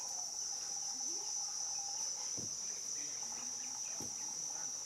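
Insect chorus, crickets or the like, keeping up a steady high-pitched trill without a break, with a fainter, lower steady tone beneath it and a couple of soft low knocks.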